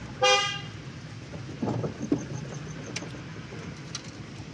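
Steady low rumble of a car driving through city traffic, heard from inside the cabin. A short, loud, high-pitched tone sounds about a quarter of a second in.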